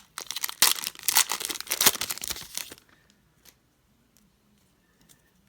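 A trading-card pack wrapper being torn open and crinkled, stopping about three seconds in.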